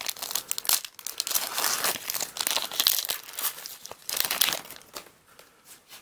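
Foil Pokémon TCG booster pack wrapper crinkling and being torn open, in a run of crackles that dies away about five seconds in.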